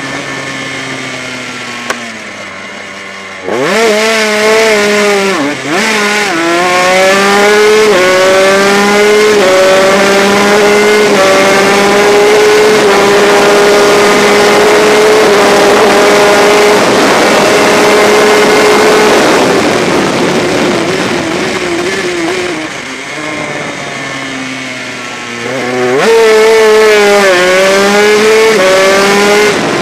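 Honda RS125 two-stroke single-cylinder race engine heard from on board at racing speed. It accelerates hard from a few seconds in, the revs climbing and dropping back with each of several quick upshifts. It eases off for a while after the middle, then revs hard again near the end, over a steady rush of wind.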